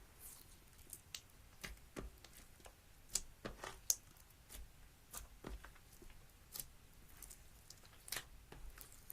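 Slime being squeezed and poked by hand: quiet, irregular sticky squishes, clicks and small pops.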